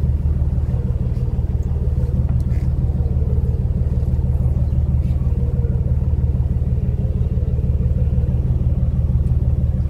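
Fishing boat's engine running at a steady, low drone.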